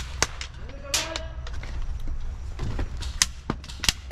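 Airsoft BBs striking the wooden plank bunker: a string of irregular sharp knocks and clicks, the sign that the player hiding inside has been spotted and is under fire.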